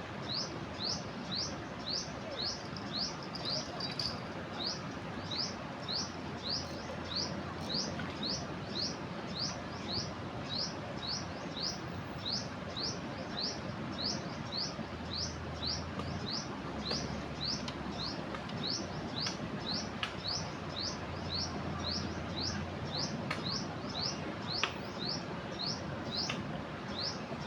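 A bird calling over and over, a short rising chirp repeated evenly about three times a second, over the steady rush of a flooding river.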